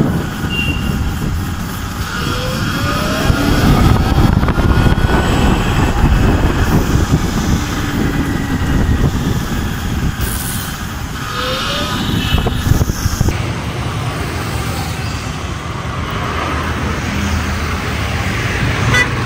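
Road noise from riding an Ultraviolette F77 electric motorcycle: steady wind rumble and tyre and traffic noise, with a few brief rising whines.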